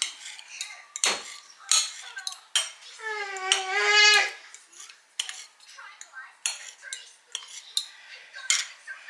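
Cutlery and dishes being handled: a string of sharp clinks and taps of utensils against plates, with a brief high voice about three seconds in.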